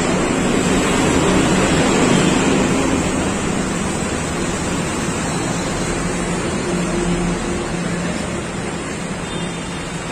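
Steady rushing noise of traffic under a concrete flyover mixed with wind buffeting the phone's microphone, loudest about two seconds in and easing off slightly after.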